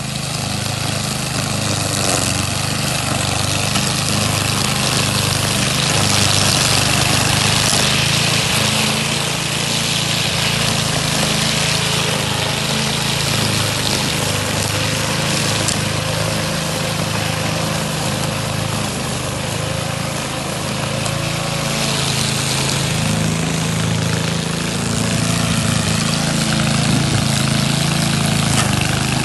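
Lawn mower engine running steadily, with a regular throb about once a second over a constant hiss.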